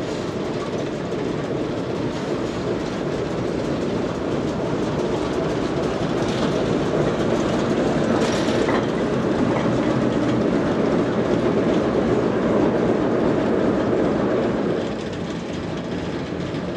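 Diesel shunting locomotive running as it slowly hauls a small dead steam tank engine past on the rails, growing louder as it draws level and easing off a couple of seconds before the end.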